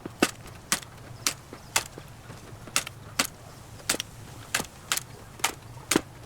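Staple gun firing staples one after another, about eleven sharp snaps at roughly two a second with a brief pause a little after two seconds in, mending a broken sieve.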